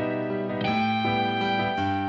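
Instrumental passage of a gentle pop ballad with no singing: sustained chords that change a few times.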